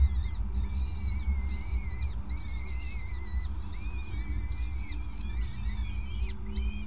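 Peregrine falcon chicks begging for food: a string of thin, wavering high calls, one after another and sometimes overlapping. Under them runs a steady low rumble.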